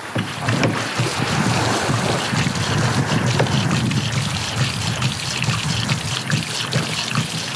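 Hand bilge pump emptying a sea kayak's cockpit, water gushing from its outlet and splashing onto the sand. The cockpit is holding a lot of water.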